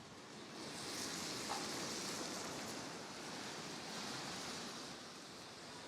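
Tyres of passing traffic hissing on a wet, snowy street, swelling about a second in and easing off near the end.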